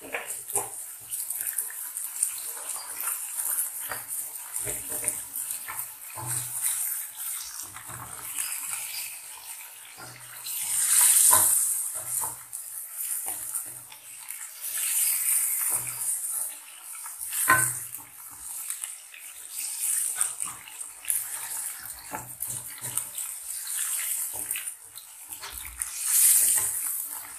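Chicken pieces sizzling as they fry in oil in a karahi, turned with a wooden spatula that scrapes and knocks against the pan. The sizzle swells louder about eleven seconds in and again near the end.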